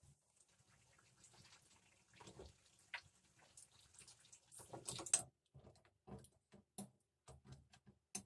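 Faint crackle of halka tatlısı batter rings deep-frying in oil, with scattered light clicks and taps, a cluster of them about five seconds in.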